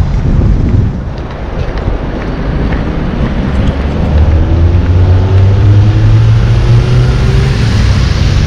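Wind buffeting the microphone over the rumble of street traffic; from about four seconds in, a passing vehicle's engine note rises steadily in pitch as it accelerates.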